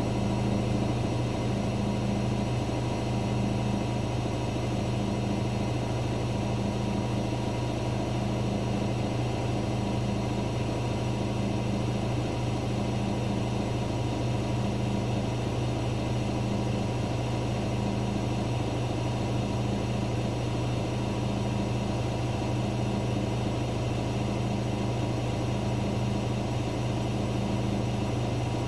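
Daewoo DWD-FT1013 washing machine on its 800 rpm spin, the drum turning at a steady speed. It makes a steady low hum, with a second tone that swells and fades about once a second.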